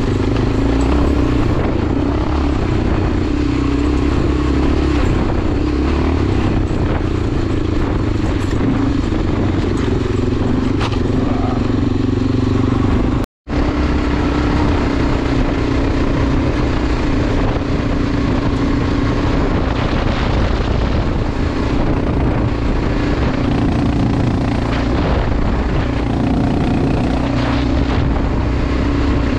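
Enduro motorcycle engine running steadily under way off-road, holding a fairly even pitch. The sound cuts out completely for a split second about halfway through.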